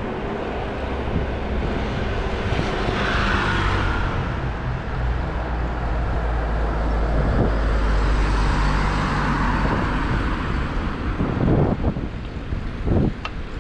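City street traffic: motor vehicles passing, over a steady low engine hum close by. Several short sharp knocks come near the end.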